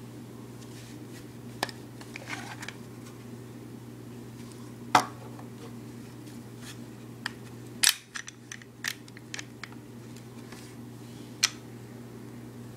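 Glock 21 pistol being handled: a string of sharp metallic clicks and clacks from its parts, the loudest about five seconds in, a cluster around eight to nine seconds, and another loud one near the end. A steady low hum lies under it throughout.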